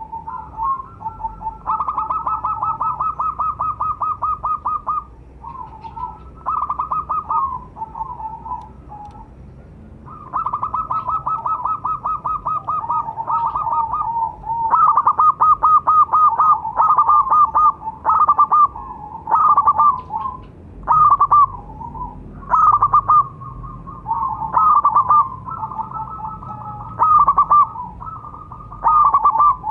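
Zebra dove (perkutut) cooing in its typical song of rapid staccato coos. The first phrases are long runs of quick pulses. From about halfway, shorter bursts follow one another closely.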